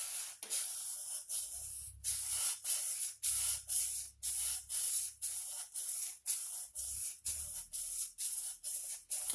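Sandpaper wrapped around a wooden block rubbed in quick, even strokes along a carving axe's steel edge, about three scratchy strokes a second: honing a newly filed Scandi bevel to refine its scratch pattern.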